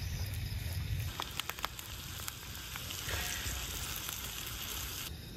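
Food frying in a small metal pan over an open wood fire, a steady sizzle. There are a few sharp clicks from the pan being handled about a second in, and the sizzle grows louder midway before stopping abruptly just before the end.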